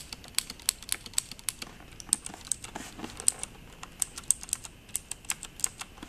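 Cherry MX Blue key switches on a Filco Majestouch 2 mechanical keyboard clicking as keys are pressed one after another. It is an uneven run of sharp, crisp clicks, several a second: the tactile click these switches make partway down each keystroke.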